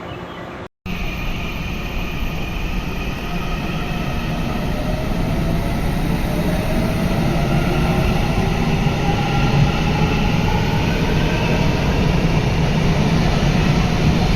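Electric train pulling away: a motor whine of several tones rises slowly in pitch over a steady rumble, growing louder as the train speeds up. It starts after a brief dropout under a second in.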